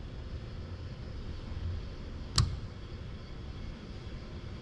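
A single sharp metallic click about halfway through, the screwdriver's metal tip holder knocking into its rack as the robot arm lowers it, over a steady low hum.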